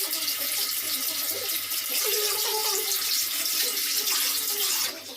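Tap water running steadily into a sink, dying away near the end.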